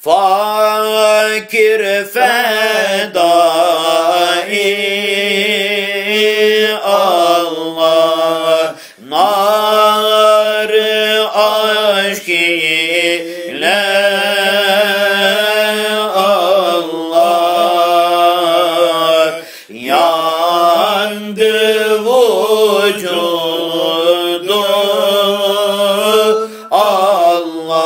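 Unaccompanied voice chanting a Sufi devotional hymn (ilahi) of zikr in long, wavering melismatic phrases, broken by short breaths about every five to seven seconds.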